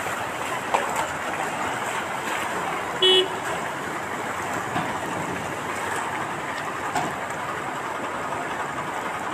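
Steady rush of floodwater flowing across a street, with one short vehicle horn toot about three seconds in.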